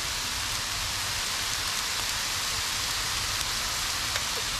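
Shrimp and steak sizzling in butter on a hot 22-inch Blackstone flat-top griddle: a steady frying hiss.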